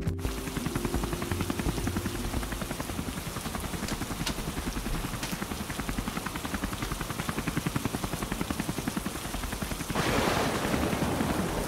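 Helicopter rotor sound effect: a steady, fast chop over a hiss. About ten seconds in, a louder hiss takes over.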